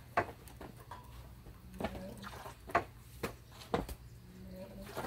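Sharp scuffs and snaps of footwork and strikes during a taekwondo form, about six of them, spaced unevenly.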